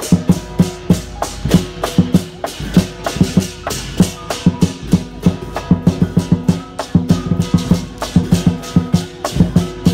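Chinese lion dance percussion: a big drum beaten fast, with clashing cymbals and a ringing gong, several strikes a second in a driving beat.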